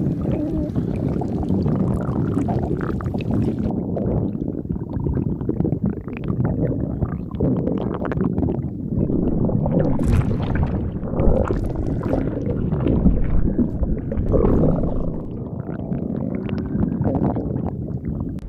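A stomach growling and gurgling: a continuous, irregular low rumble with shifting swells.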